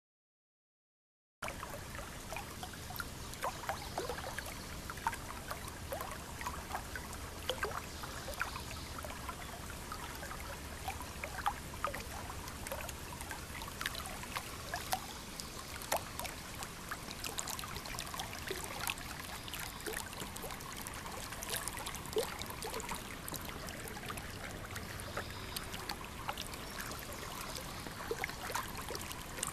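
Shallow river water trickling and splashing: a steady rush with many small irregular drips and clicks. It begins abruptly about a second and a half in.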